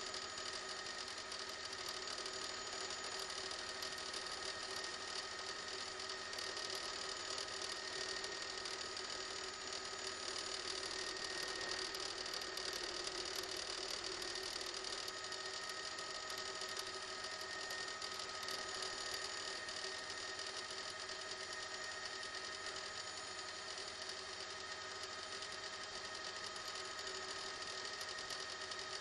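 Steady drone of a helicopter's turbine engine and rotors heard from on board, with a constant high-pitched whine.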